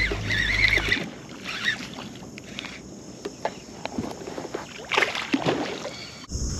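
Water sloshing and small splashes around a kayak as a small hooked bass is played on the line, with scattered light clicks and a louder splash about five seconds in. A low steady hum fills the first second and stops abruptly.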